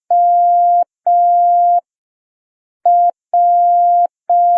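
Morse code letter W, dot-dash-dash, sounded as a steady mid-pitched beep at a slow learning pace and sent twice, about two seconds apart.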